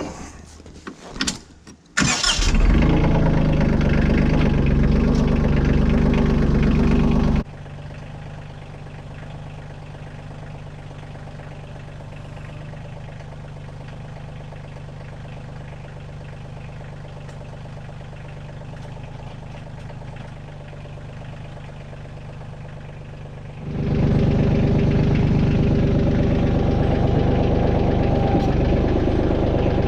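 Kioti CK2610 compact tractor's three-cylinder diesel engine starting about two seconds in and running loudly, dropping abruptly to a much quieter run about seven seconds in, then getting loud again near the end.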